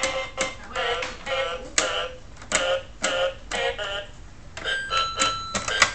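Toy electronic animal keyboard with its keys pressed one at a time, each giving a short pitched note in a wavering, voice-like animal sound, about eight notes in the first four seconds. Near the end it switches to steadier electronic tones.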